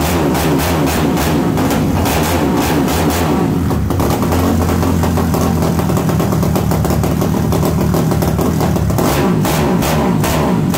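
Modified air-cooled single-cylinder motorcycle engine revved on the shop floor, the throttle blipped hard again and again. For a few seconds in the middle it settles to a steadier, lower run, then revs up again near the end.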